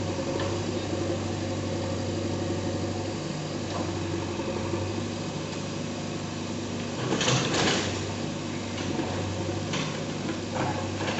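Bulldozer's diesel engine running steadily at demolition work, with a louder rough burst of noise about seven seconds in and a shorter one near the end.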